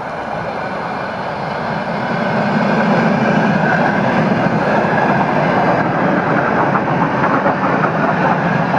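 ER2 electric suburban train approaching and passing close by at speed: wheel-on-rail noise growing louder over the first two or three seconds, then staying loud and steady as the carriages go by.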